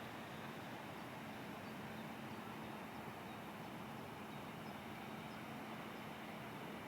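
Steady outdoor background noise with a faint low hum and a few faint high chirps.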